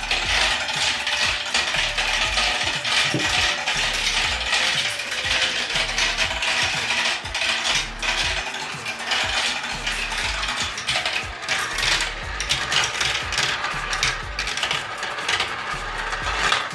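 Several marbles rolling and clattering together through a home-built marble run, a dense, continuous rattle of clicks and knocks as they drop, bounce and spin through the track.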